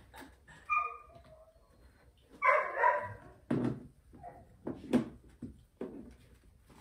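German shepherd puppies yelping: a short whining cry about a second in and a louder yelp a little over two seconds in, followed by a string of knocks and thumps as the puppies scramble over a plastic step.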